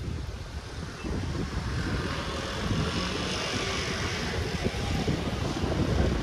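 A vehicle passing by, its noise swelling and then fading over a few seconds, over a low rumble of wind on the microphone.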